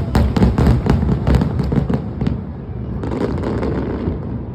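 Finale aerial fireworks going off in a rapid barrage of bangs, about five a second over a deep rumble. After about two seconds the barrage thins to scattered crackle and a fading rumble.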